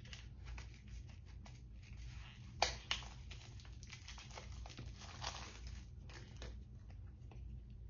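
Faint rustling and small clicks of a peel-off lip-liner tube and its packaging being handled, with one sharper click about two and a half seconds in.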